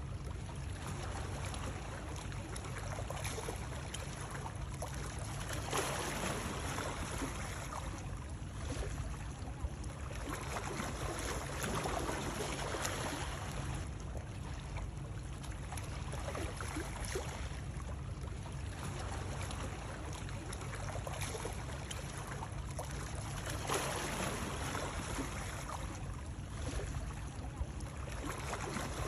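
Continuous water noise over a steady low rumble, swelling and easing every five or six seconds like lapping or gently moving water, played as a soothing sleep sound.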